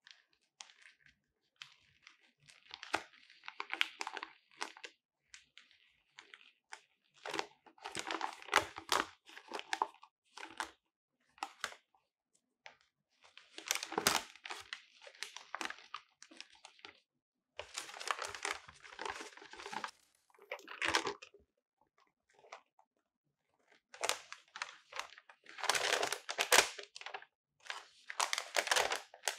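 A large folded paper instruction leaflet being unfolded and opened out by hand, crinkling and rustling in several bursts with short pauses between.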